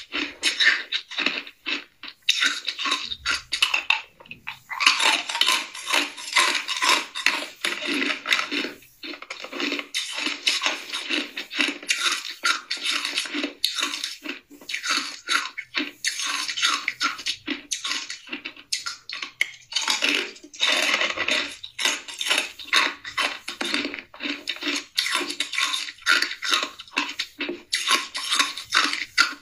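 Hard ice being bitten and crunched between the teeth close to the microphone: rapid, crisp cracking and crackling, many crunches a second, broken by a few short pauses.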